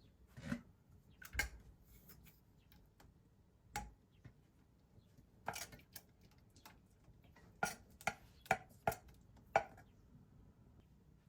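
Kitchen utensils and dishes knocking and clinking in a series of separate sharp taps, ending with a quick run of five about every half second.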